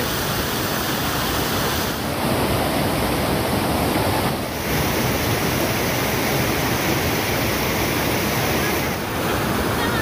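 Water of a waterfall and a boulder-strewn mountain stream rushing and splashing over rocks, a steady even rush that dips briefly three times.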